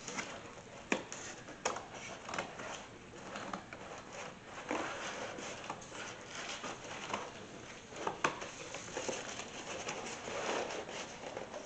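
Sheet of cardboard being cut and handled on a concrete floor: irregular scraping and rustling, with a few sharp knocks, once about a second in, again just after, and once near the end.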